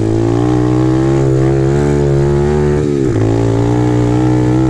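Apollo RFZ 125cc pit bike's single-cylinder four-stroke engine pulling along under throttle, its note rising steadily. About three seconds in the note drops sharply, then climbs again from lower down.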